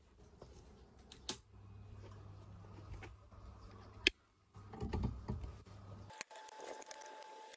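Scattered light clicks and taps over a low steady hum, the sharpest click about four seconds in, followed by a short low rumble.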